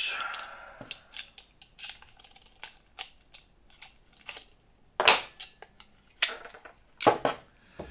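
Steel G-clamps being unscrewed and lifted off clamped metal and fibreglass panels: a scrape at first, then a scatter of metallic clicks and clanks, the loudest about five seconds in.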